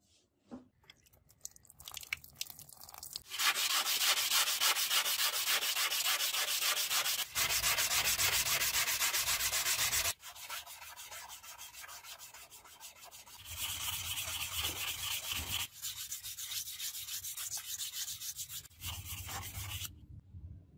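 Hand sanding of a forged steel kunai blade: abrasive paper rubbed along the steel in fast back-and-forth strokes. The rubbing eases off in the middle, picks up again and stops near the end.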